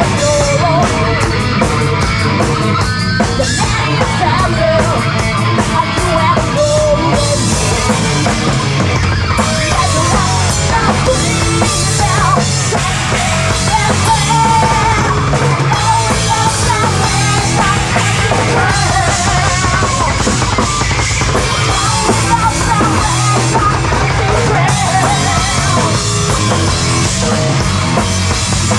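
Live hard rock / heavy metal band playing loudly, with a drum kit and distorted electric guitars, and singing over the top.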